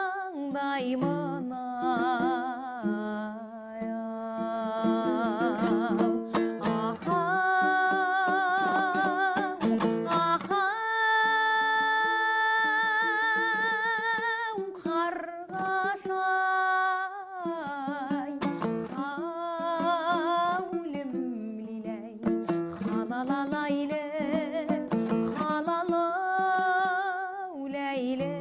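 A singer performing a song with strong vibrato, holding long wavering notes between short phrases, accompanied by a plucked string instrument.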